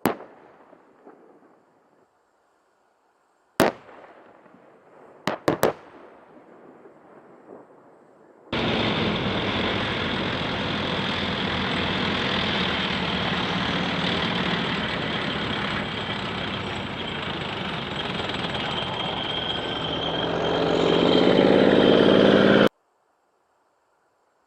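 Heavy weapons fire on a live-fire range: one sharp blast, then a single shot and two quick shots a couple of seconds later, each echoing away. About eight seconds in, a loud continuous rushing noise with a low hum starts, swells near the end and cuts off abruptly.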